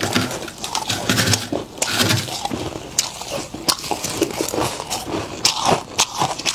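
Freezer frost scraped off by a gloved hand and crunched between the teeth: irregular crisp crackling, with sharp crunches of bites into frost and ice, the sharpest in the second half.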